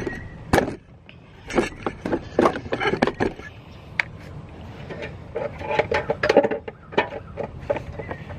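Irregular metallic clinks, knocks and scrapes of parts and hand tools being handled in a car's engine bay.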